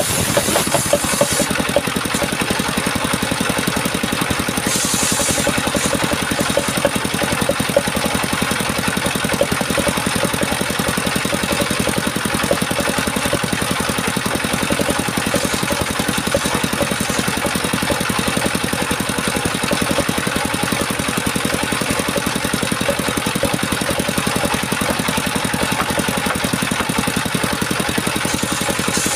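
Power saw running steadily for the whole stretch, an even, fast-pulsing mechanical drone that never pauses or changes speed.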